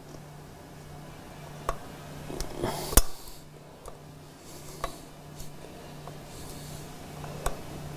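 Light metallic clicks and scrapes as a steel snap ring is worked into a motorcycle wheel hub with snap ring pliers, seating in its groove above a new wheel bearing. The sharpest click comes about three seconds in.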